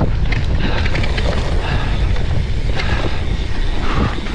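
Wind rushing over the microphone while a hardtail mountain bike rattles over rough trail, with many short clicks and knocks throughout.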